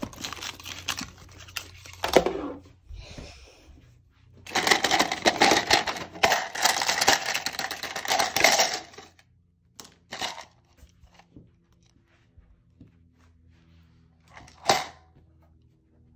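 Hands rummaging through clutter: paper and plastic items rustling and crinkling, most densely for about five seconds in the middle, followed by a few sharp clicks and knocks.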